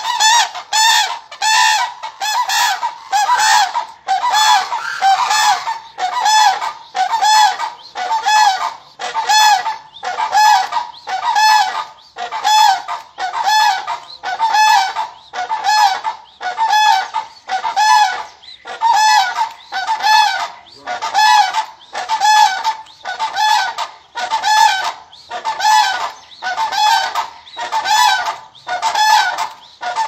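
Crane calls repeated over and over at an even pace of about one call a second. Each call is short and honking, bending up and down around one pitch.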